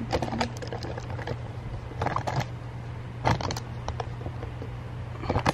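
Handling noise: rustles and scattered clicks from a phone being moved close to the microphone as the person shifts on the couch, with two louder scuffs about two and three seconds in, over a steady low hum.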